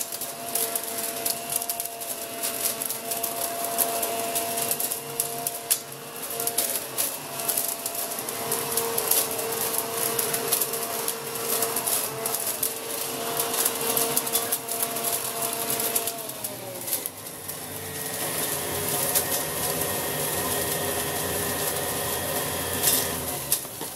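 Corded electric leaf vacuum-mulcher running with a steady motor whine, over a constant crackle and ticking of dry leaves being sucked in and shredded. About two-thirds of the way through the whine slides down in pitch and stays lower and deeper. The sound falls off just at the end.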